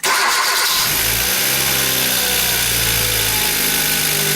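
Freshly rebuilt Hyundai Veloster 1.6 GDI (G4FD) four-cylinder direct-injection engine running at a slightly raised cold idle. The sound comes in suddenly and holds steady.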